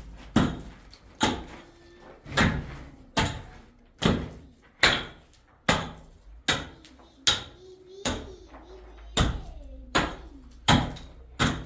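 About a dozen heavy blows of a hand tool striking something hard, at a steady pace of roughly one a second. A faint voice is heard briefly past the middle.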